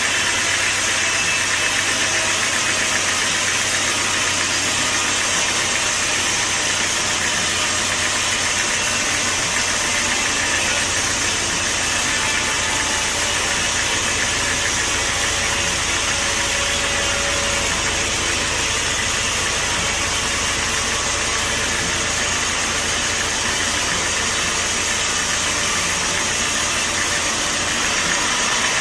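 Sawmill machinery running steadily: an engine-like drone under a strong, even hiss. The low hum deepens into a broader rumble about ten seconds in.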